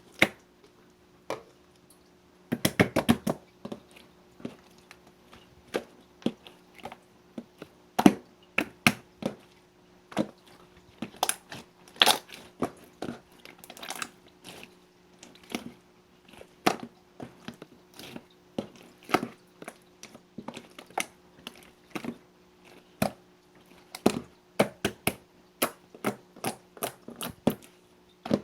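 Marbled slime being pressed and worked by hand, giving irregular sharp clicks and pops, with a quick run of pops about three seconds in. A faint steady hum sits underneath.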